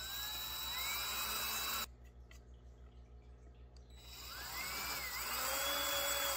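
Cordless drill boring a shallow, wider counterbore hole into a pine board so the screw head can sit inset. It runs in two short bursts, each winding up with a rising whine; the first stops about two seconds in and the second starts a couple of seconds later.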